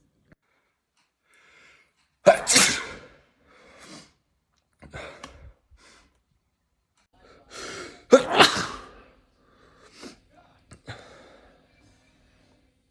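A person sneezing twice, about six seconds apart. Each sneeze is a sudden loud burst that fades over about a second, with quieter breaths between.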